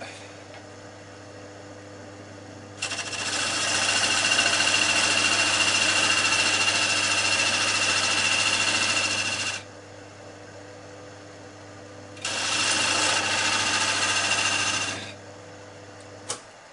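Wood lathe running with a steady hum while a parting tool cuts a rebate into the spinning wood. It makes two passes: a long scraping cut with a high whine of about seven seconds, then a shorter one of about three. Near the end there is a click and the lathe motor stops.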